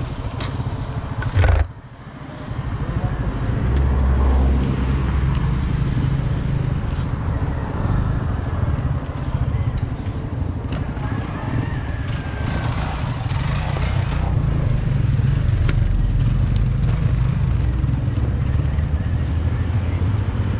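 Steady road-riding noise: a low vehicle rumble with wind on the microphone. It drops off suddenly for a moment just under two seconds in.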